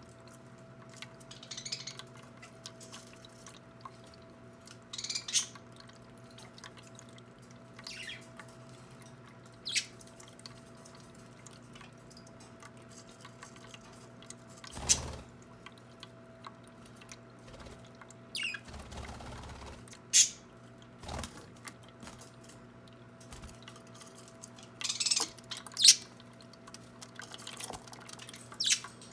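Budgies chirping in short, sharp calls every couple of seconds, some much louder than others, over the steady low hum of a small electric water-fountain pump and a faint trickle of water.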